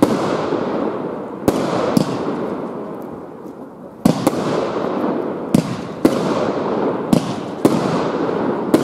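Aerial fireworks bursting overhead: about eight sharp bangs, several in pairs about half a second apart. Each bang is followed by a long hissing tail that fades.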